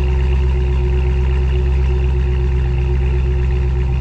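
Cadillac CT5-V Blackwing's supercharged 6.2-litre V8 idling steadily.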